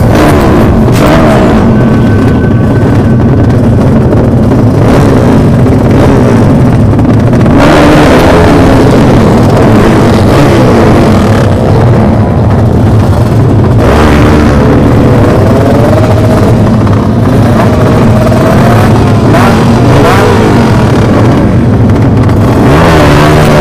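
Several motorcycle engines revving loudly at close range, the pitch climbing and falling again and again.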